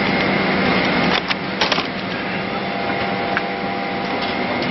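Steady hum and hiss of the Boeing 767's cabin air-conditioning on the ground, with the crackle of paper magazines being handled in the seat-back pocket, sharpest about a second and a half in.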